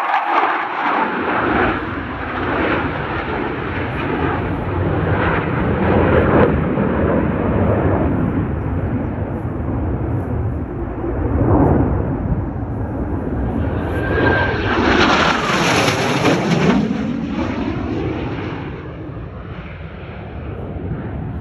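Blue Angels F/A-18 Super Hornet jets flying overhead: loud, continuous jet engine noise. About fourteen seconds in a jet passes close, the noise swelling with a sweeping, shifting whoosh, then easing off over the last few seconds.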